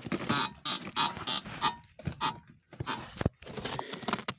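Front suspension of a 2018 Chevrolet Niva giving a series of short, sharp creaks and squeaks. They come quickly one after another for about two seconds, then more spaced out. The source of the squeak has not been found, and the owner feels it comes from the wheel itself.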